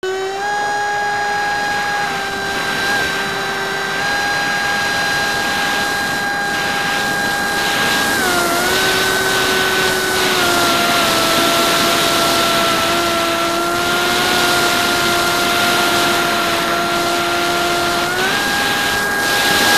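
Hymax 2700kv brushless inrunner motor spinning a 6x4 APC propeller in flight, a steady high whine with wind rush over the airframe. The pitch steps down about eight seconds in and again near ten seconds as the motor speed drops, then rises back near the end.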